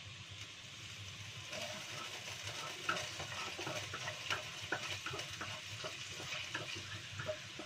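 Food sizzling in hot oil in a wok as a spatula stirs it, with frequent clicks and scrapes of the spatula against the pan. The sizzle picks up about one and a half seconds in.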